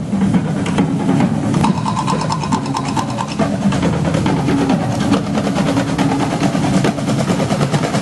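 Loud, rapid drumming with music, the strokes dense and continuous, and a short run of repeated higher notes about two seconds in.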